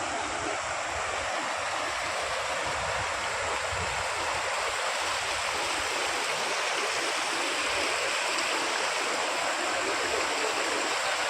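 Floodwater rushing steadily through an overflowing stream.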